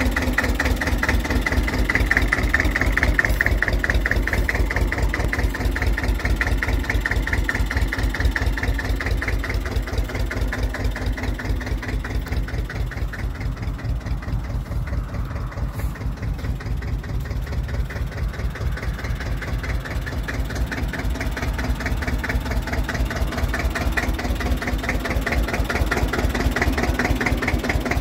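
The diesel engine of a Dl8 narrow-gauge field-railway locomotive runs steadily under way, heard from aboard as a rapid, even chugging. It dips slightly in level about midway, then comes back up.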